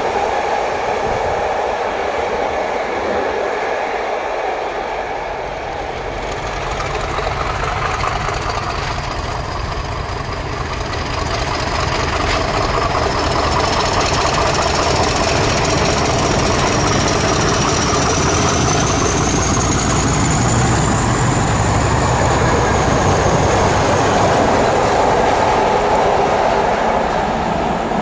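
Heritage diesel locomotives hauling trains of passenger coaches on the main line: a train running away, then a locomotive's engine drone growing as it approaches, with wheel and rail noise and a high whine that rises and then falls.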